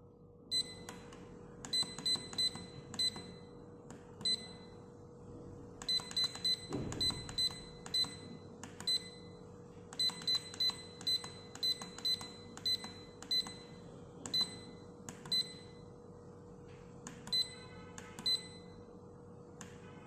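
The beeper of a 3D LED digital clock giving short high beeps as its setting buttons are pressed: single beeps and quick runs of three or four, each with a faint button click, while the time is being set.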